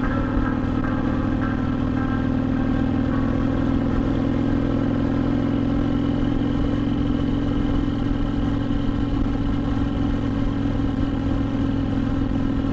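Motorcycle engine running steadily while cruising, with a constant low drone that holds the same pitch throughout.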